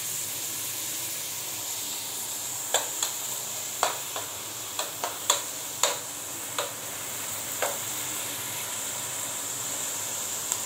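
Diced red onion sizzling steadily in hot oil in a metal pan, while a spoon stirs it, making about ten sharp, irregular clicks against the pan in the middle of the stretch.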